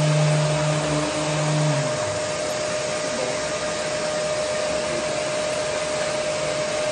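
Electric sander running steadily, sanding a coat of acrylic putty on a wall, a steady whine over a rushing noise. A lower hum drops out about two seconds in while the rest carries on.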